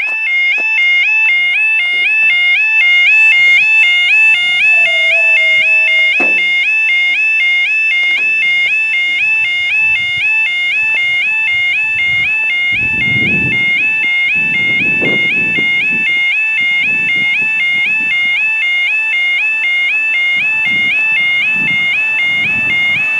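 Level crossing yodel alarm sounding continuously, a fast two-tone warble that warns road users that the barriers are down and a train is coming. About six seconds in, a lower tone slides down under it and stops with a knock.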